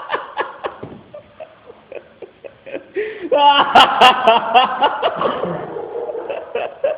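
Quiet snickering, breaking into louder laughter about three seconds in.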